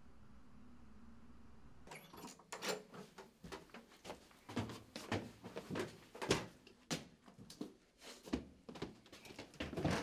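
Low steady room hum, then from about two seconds in a busy run of irregular knocks, thuds and scuffs: a door being pushed open and someone rushing in on hurried footsteps.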